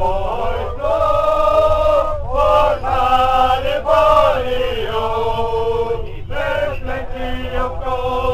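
Male voices singing a chant together in long held notes that step up and down in pitch, over a low rumble.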